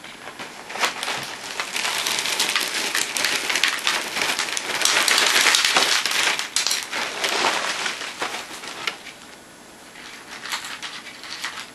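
Crinkling plastic liner bag and Cap'n Crunch Christmas Crunch cereal pouring out of the box, a dense rattling hiss that is loudest about halfway through and fades after about eight seconds, followed by a few lighter clicks.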